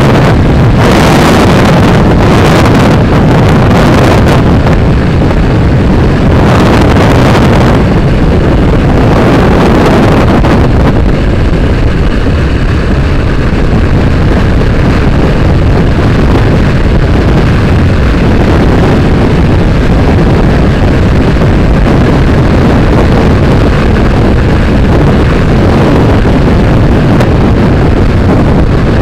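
Motorcycle being ridden along a road, heard as loud wind rushing and buffeting over the on-bike microphone with the engine running beneath it. The wind gusts harder in the first several seconds, then settles to a steadier rush.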